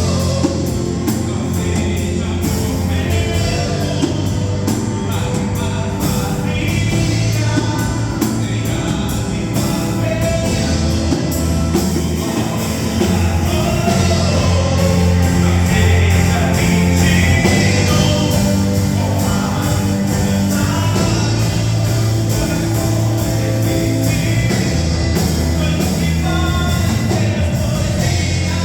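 Christian worship song with singing over a full band accompaniment, playing steadily throughout.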